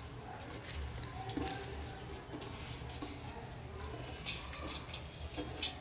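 Quiet patter of drained, parboiled rice being tipped from a steel pan into a pot of chicken broth, with a few light clicks near the end.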